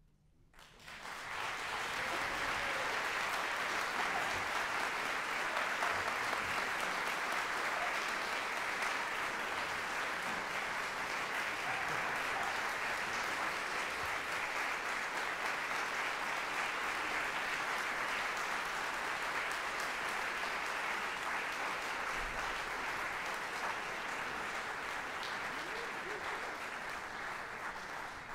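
Audience applauding at the end of a performance, breaking out from silence about a second in and holding steady, easing slightly near the end.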